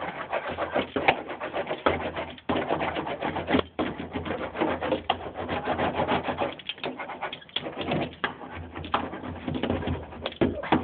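Hand roller worked back and forth over Damplifier Pro sound-deadening mat, pressing it down: an uneven rubbing and scraping that rises and falls with each stroke.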